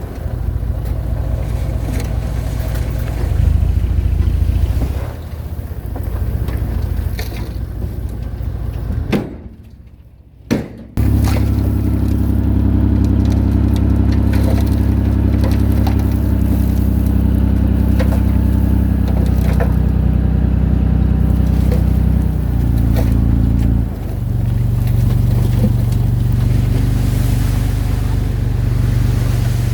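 Diesel engine of earthmoving machinery running at a steady working speed, cutting out briefly about a third of the way in and then running on with a strong, even note that shifts near the end.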